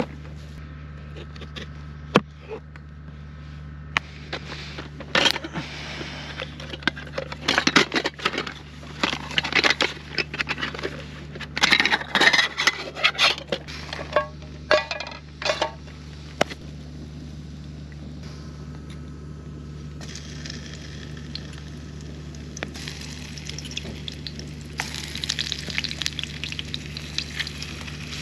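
Kitchen knife chopping potatoes on a plastic cutting board, a run of sharp knocks for about ten seconds. Later the slices are scraped into a pan over a wood fire, with a crackling sizzle near the end. A steady low hum runs underneath.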